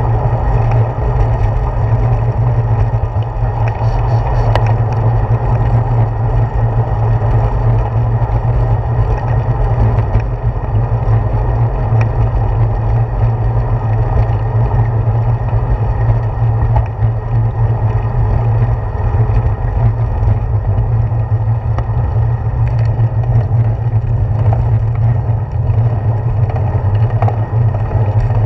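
Steady riding noise from a handlebar-mounted GoPro Hero 4 on a moving bicycle: loud low wind rumble on the microphone mixed with tyre and road vibration, with a few faint ticks.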